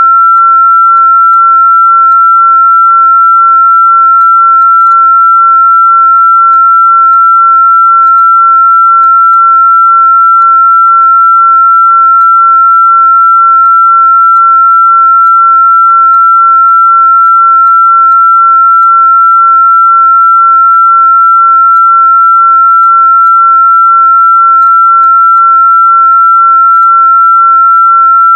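A single loud, steady electronic pure tone at a fairly high pitch, held unchanged throughout, with no other sound over it.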